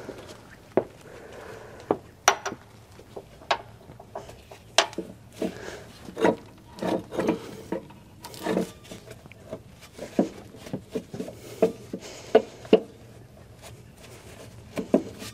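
Hand wrench working the lower mounting nut of a semi truck's rear shock absorber: irregular metallic clinks and knocks, with some scraping, as the shock hardware is worked loose.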